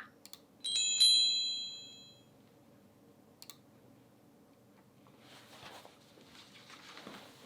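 A single bell-like chime from a Xiaomi POCO F2 Pro ringtone played through the phone's speaker, struck about a second in and fading away over about a second; a faint click and soft rustling follow near the end.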